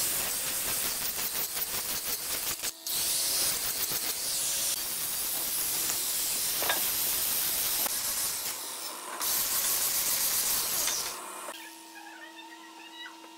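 Angle grinder with a sanding disc sanding a hardwood handrail: a steady grinding noise, briefly broken about three seconds in and again near nine seconds. It stops about eleven seconds in, and faint music follows.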